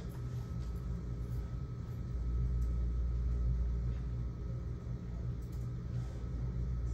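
Steady low rumble and hum of room tone, with a faint steady high-pitched tone over it.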